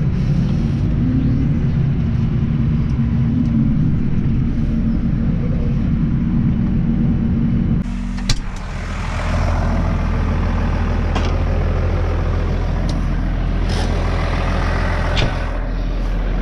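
Tractor diesel engine running steadily, heard from inside the closed cab. About eight seconds in the sound changes suddenly with a sharp click as the cab is opened; after that the engine is heard as a steady low hum with more hiss, and a few short clicks follow.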